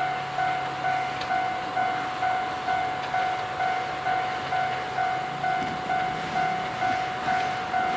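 Railway level-crossing alarm ringing steadily, about two strokes a second, each stroke fading before the next.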